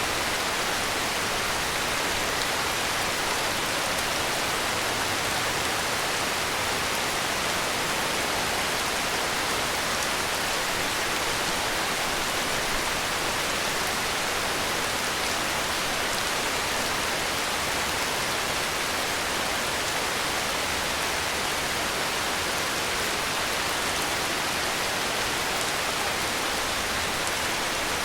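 Heavy rain falling steadily, an even hiss of rainfall with no thunder or sudden sounds.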